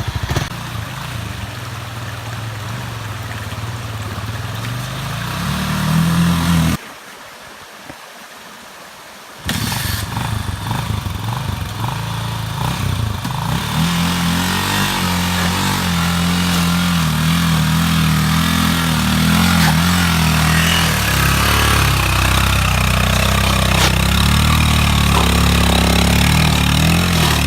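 Motorcycle engine running and revving while the bike struggles through a muddy stream crossing, its rear wheel spinning and digging in. The sound drops away for a couple of seconds about seven seconds in, then the engine comes back louder and holds steady with a hiss over it.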